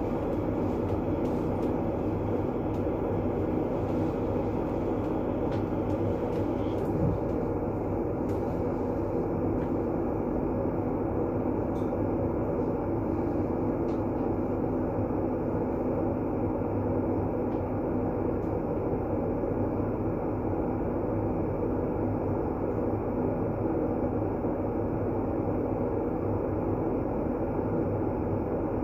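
Steady, unchanging rumbling noise, deep rather than hissy, with a low hum running through it, played as calming white noise. A single soft knock about seven seconds in.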